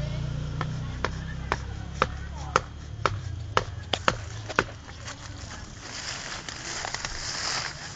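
Footsteps on dry fallen leaves, sharp clicks about twice a second for the first five seconds, then a rustle of leafy branches brushing close near the end.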